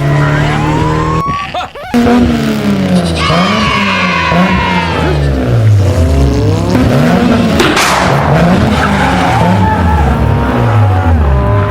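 An engine revving up and down over and over, like a car being driven hard, with high tyre-squeal-like glides.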